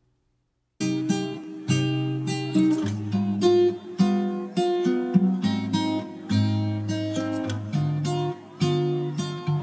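Background music: acoustic guitar playing plucked notes, starting about a second in after a brief silence.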